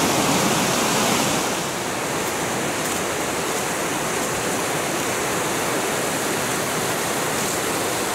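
Fast-flowing stream rushing over rocks in white water: a steady, even rush of water that drops slightly in level about two seconds in.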